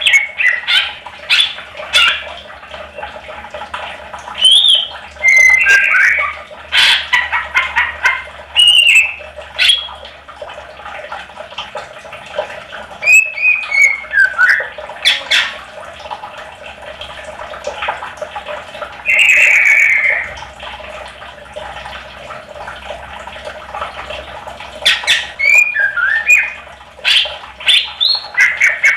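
Green leafbird (cucak ijo) in full song in bouts: rapid chirps, slurred up-and-down whistles and harsh squeaky notes, with pauses of a few seconds between bouts.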